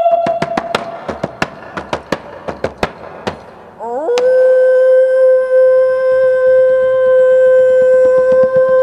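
Sharp taps on a shaman's frame drum, about five a second and growing fainter, then a woman's voice sweeps up into one long, steady high note.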